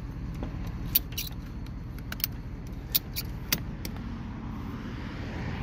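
Scattered sharp metallic clicks and clinks from handling the trailer's ratchet tie-down straps and hooks, about six over a few seconds. Under them runs a steady low engine rumble.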